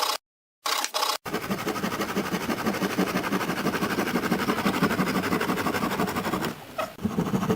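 A few short clipped bits of sound broken by dead silence, then about a second in an electric woodworking power tool starts running steadily, dipping briefly near the end.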